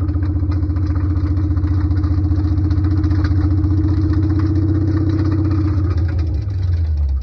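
Infiniti G35's V6 engine running with a rapid, even clatter, an unexplained noise the owner has yet to track down. About six seconds in the steady sound shifts and starts to break up.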